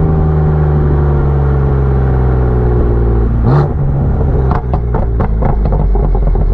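BMW F82 M4's twin-turbo inline-six with catless downpipes and a tune, running at a steady speed with its pitch sinking slowly. Around the middle there is a brief sharp blip. After it comes a quick series of about eight sharp cracks from the exhaust.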